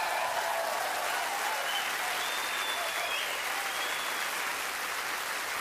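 Steady applause from many hands clapping, with a few faint voices over it.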